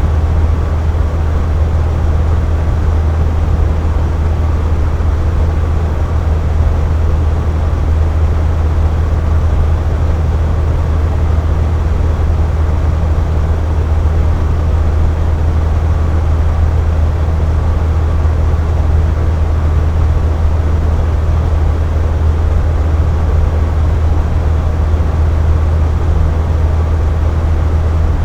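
Air conditioner running steadily: a constant low hum with an even whoosh of airflow over it.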